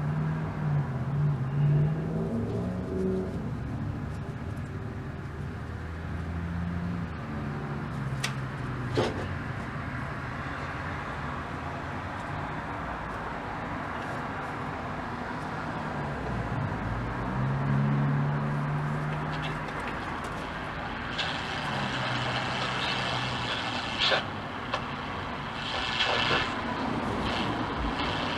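Static and hiss from a four-tube AM tube radio's speaker as it warms up and is tuned, with a low wavering hum that comes and goes and some crackles and clicks near the end.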